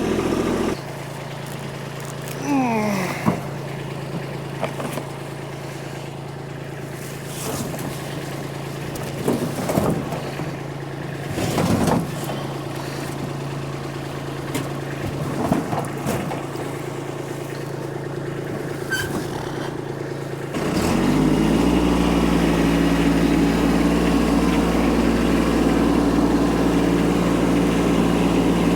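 Kubota tractor engine running at a low idle, with a short falling squeal and several metallic clanks now and then. About two-thirds of the way through it is throttled up and held at higher revs, much louder.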